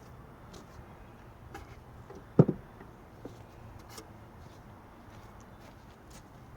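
A single sharp knock about two and a half seconds in, with a few faint clicks before and after it.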